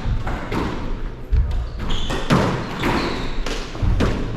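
Ball hits echoing in an indoor racquet court: several sharp thuds a second or so apart, with voices in the background.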